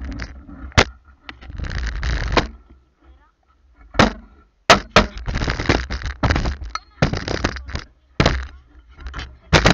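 A series of sharp knocks and cracks, about a dozen, scattered irregularly, between bursts of rushing noise.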